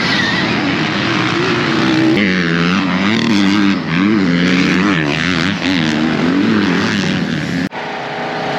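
Dirt bike running, its motor pitch rising and falling again and again with the throttle. Near the end it cuts off suddenly and a steadier hum takes over.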